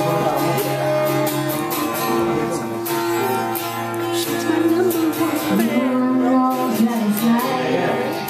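A woman singing a melody with long held notes, accompanied by a strummed acoustic guitar.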